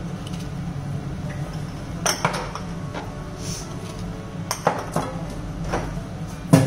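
A glass jar and kitchenware being picked up and set down on a kitchen counter: several scattered light clinks and knocks, the sharpest near the end, over a steady low hum.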